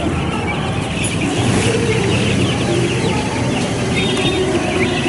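A crowd of caged chicks and young chickens peeping and clucking: many short, high chirps overlapping, with lower clucking calls mixed in, over a steady background din.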